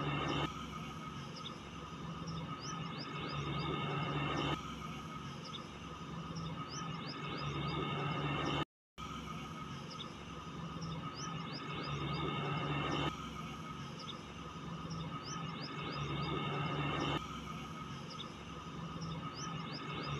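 Birds chirping over a steady low hum, the same stretch of sound repeating in a loop about every nine seconds, with a brief cut to silence near the middle.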